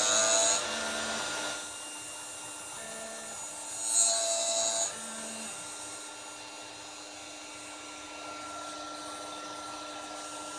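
CNC milling spindle turning a 0.8-module disc gear cutter through a POM plastic gear blank: a steady high whine, with short stepper-motor tones as the axes step and louder cutting at the start and again around four seconds in.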